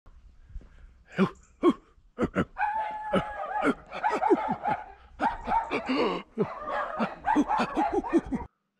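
A man's voice making wordless exclamations and laugh-like noises: short bursts that fall in pitch, with one held note about three seconds in, stopping abruptly just before the end.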